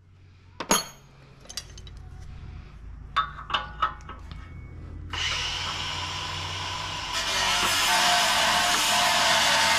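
A few light metal clinks of tools or parts, then a steady mechanical whirring noise of a power tool or machine starts about five seconds in and gets louder about two seconds later.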